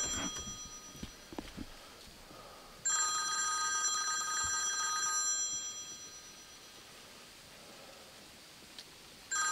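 Mobile phone ringtone ringing for an incoming call: a chord of steady high tones, one ring starting about three seconds in and lasting about three seconds before fading, and the next ring beginning near the end.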